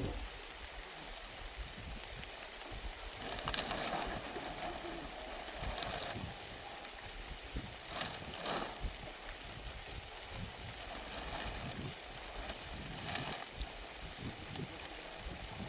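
Heavy rain falling steadily, a continuous hiss with a few brief louder surges.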